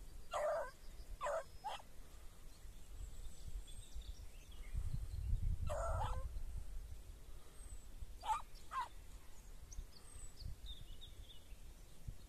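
A dog barking in short bursts, about six barks in three groups, with gusts of wind on the microphone and faint bird chirps between them.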